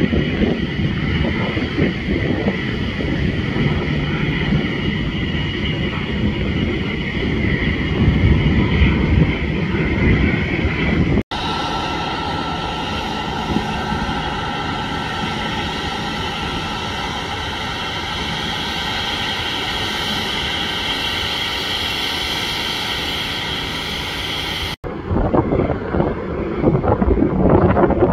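Jet airliner engines at taxi power: a low rumble with wind buffeting the microphone, changing abruptly about eleven seconds in to a steady jet whine with several held tones from a taxiing Southwest Boeing 737. Near the end it changes abruptly again to gusty wind noise over a low rumble.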